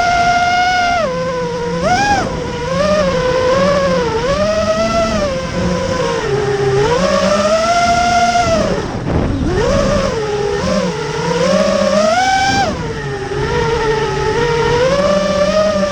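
Motors of a freestyle FPV quadcopter (iFlight Xing-E 2207 1700KV) whining. Their pitch rises and falls continually with the throttle, drops steeply about nine seconds in and climbs back.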